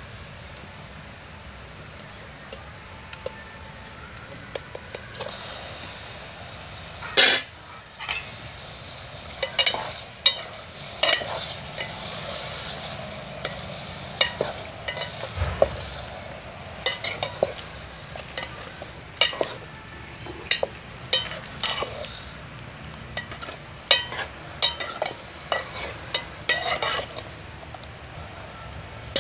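Metal ladle stirring goat intestine and bottle gourd curry in a metal pot over a wood fire. A sizzle builds from about five seconds in, with irregular scraping clicks of the ladle against the pot and one louder knock about seven seconds in.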